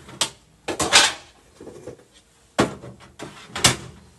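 Plastic cable storage boxes and their lids being handled: a series of sharp clacks and knocks with short scrapes of plastic against plastic.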